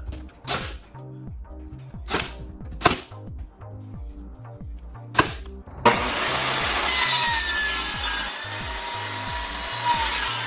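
Four sharp knocks in the first five seconds, then about six seconds in a power saw starts cutting wood and runs steadily to the end.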